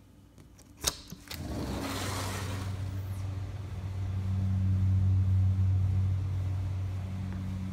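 Two sharp clicks and a short rush as a patio door is opened. Then the steady low hum of a central air-conditioner's outdoor condenser unit running, holding one pitch throughout.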